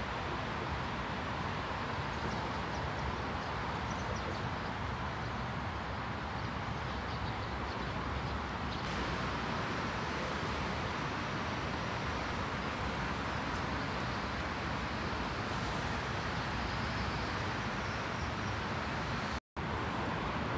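Steady outdoor background noise, an even rushing hiss with no distinct events, which cuts out for a split second near the end.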